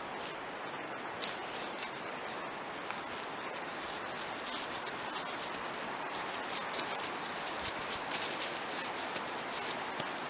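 Gear being packed into a backpack: fabric and stuff sacks rubbing and rustling, with many small irregular crinkles and scrapes over a steady background hiss.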